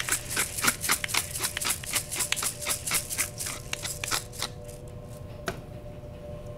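Pepper mill being twisted to grind black pepper: a fast run of crunchy clicks that stops about four and a half seconds in.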